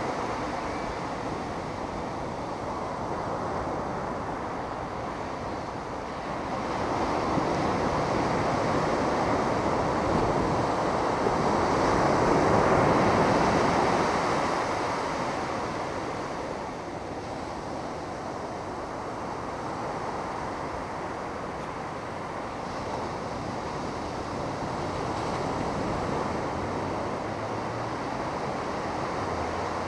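Ocean surf washing onto a beach: a steady rushing noise that swells and fades slowly, loudest about halfway through.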